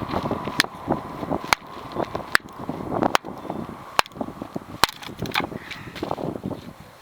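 Hultafors Scout hatchet striking wood again and again, splitting firewood into kindling: six sharp knocks a little under a second apart, with lighter taps between them.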